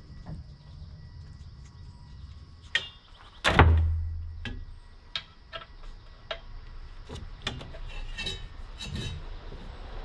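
Short clicks and light knocks from an air hose and its fittings being handled and fitted to a steel air tank, with one loud thump about three and a half seconds in that leaves a low hum dying away over about a second.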